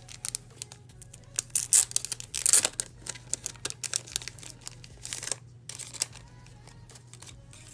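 Packaging crinkling and rustling as it is handled, in irregular bursts, loudest about two seconds in and dying away after about five seconds.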